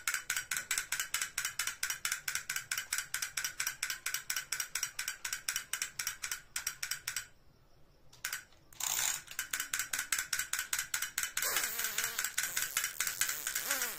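Rapid, even mechanical clicking, about six clicks a second, like a ratchet; it stops for a second or so around the middle, then resumes, with a faint wavering sound under it near the end.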